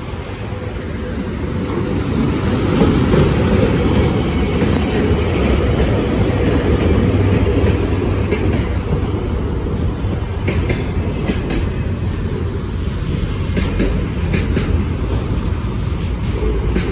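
Freight train hauled by a VL80S AC electric locomotive passing close by: a steady rumble of wheels on rail that builds over the first few seconds, with clusters of clicks from the wheels crossing rail joints later on.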